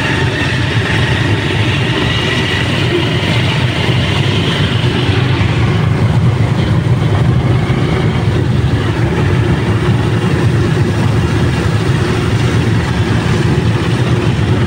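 Motorcycle engine of a motorized tricycle running steadily while underway, heard from inside its sidecar, with a low rumble.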